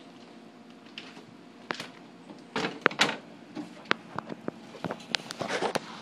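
Cat clawing and pawing at the edge of a refrigerator door, making a run of scratches, clicks and knocks as the door is pulled open.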